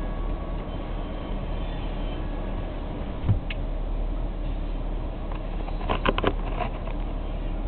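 BNSF freight train passing over a road crossing, its cars rumbling by steadily as heard from inside a stopped vehicle's cab. There is a single click a little past three seconds and a quick cluster of sharp knocks about six seconds in.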